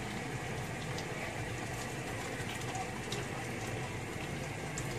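Pot of asam pedas gravy bubbling steadily at a boil, with a couple of faint clicks.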